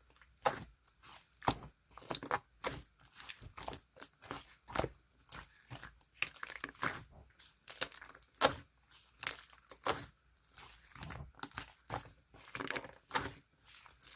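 Blue clear slime being handled, giving off irregular sticky clicks, pops and crackles several times a second.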